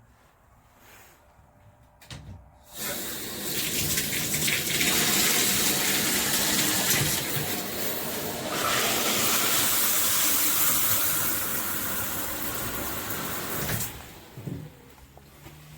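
Handheld shower head spraying water: the flow comes on about three seconds in, runs steadily as a loud hiss, and stops near the end.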